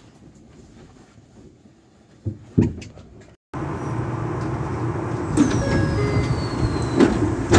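An electric train running: a steady rumble and rush that starts abruptly about three and a half seconds in, with a thin high tone falling in pitch over about a second and a half. Before it there is only faint background with two soft thumps.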